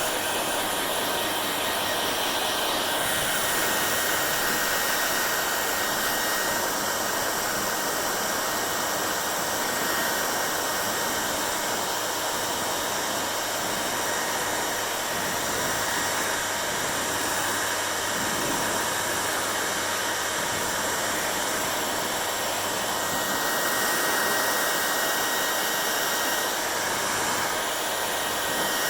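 Hair dryer blowing: a steady airy rush with a faint motor hum, swelling and easing slightly now and then as it is moved.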